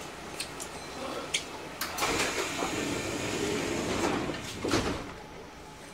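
Passenger doors of a Kintetsu 1230-series train sliding with a rush of air for about three seconds, ending in a knock as they shut.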